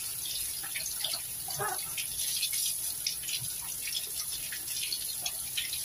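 Kitchen tap running onto long eggplants as they are rubbed and turned by hand, the stream splashing and spattering unevenly off the wet skins.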